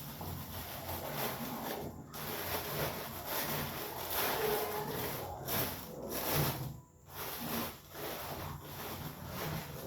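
Cellophane paper crinkling and rustling as it is handled and shaped, in irregular spells with short pauses.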